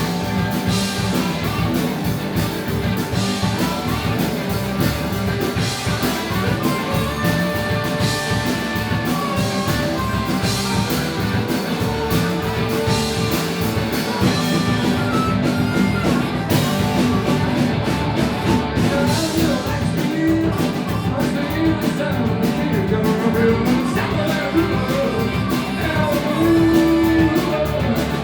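Live rock band playing a song, with electric guitar and a singer's voice over a steady beat.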